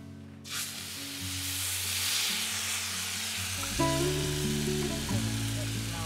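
Marinated jerk chicken sizzling on a hot Skottle, a wok-shaped metal disc heated by a propane burner. The sizzle starts suddenly about half a second in as the chicken hits the hot metal, then keeps on steadily.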